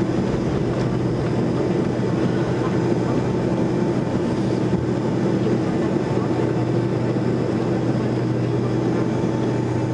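Boeing 737-200's Pratt & Whitney JT8D turbofan engines running steadily at low taxi power, heard inside the cabin as an even drone with a constant low hum and a faint high whine.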